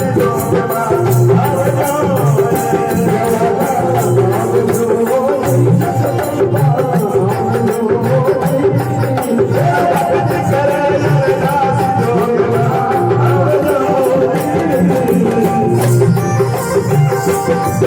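Instrumental interlude of a Rajasthani devotional bhajan: a sustained melody over steady folk drumming and rattling jingles.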